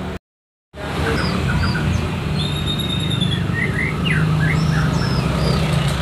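Caged songbirds chirping and calling in short notes, slurred phrases and whistles, over a steady low hum of road traffic. The sound cuts out for about half a second near the start.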